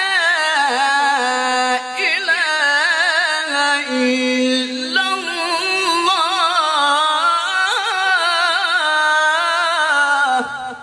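A man's voice in melodic Qur'an recitation (tajweed) sings one long, unbroken ornamented phrase, its pitch wavering and turning through many rapid melismas. It ends just before the close.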